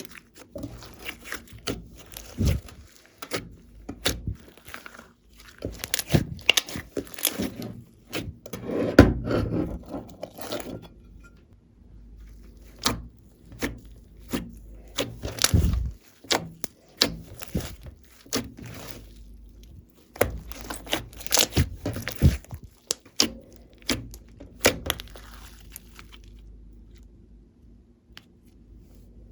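Glossy slime being mixed and pressed by hand, giving irregular sticky clicks and crackly pops.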